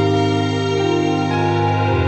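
Background music: slow, soft keyboard chords held over a steady bass, with a change of chord near the end.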